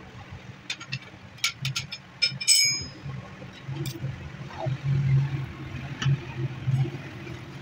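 Metal clicks and clinks of a socket wrench and loose metal parts against the rusty housing of a monoblock pump motor as its end cover is unbolted and worked free, with one loud ringing metallic clank about two and a half seconds in. A steady low hum runs underneath.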